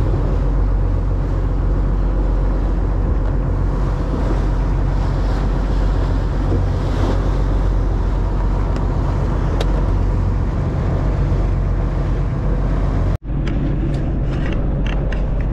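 Fishing boat's engine running steadily, with wind and water noise over it. The sound drops out for an instant about thirteen seconds in, then carries on with a few light ticks.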